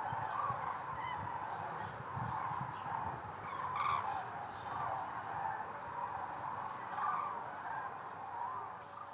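A large flock of common cranes calling in flight overhead on migration: many overlapping calls that merge into one continuous chorus.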